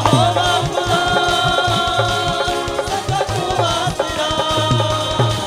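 Live Punjabi Christian worship song: a man singing long held notes over harmonium chords, with a steady percussion beat underneath.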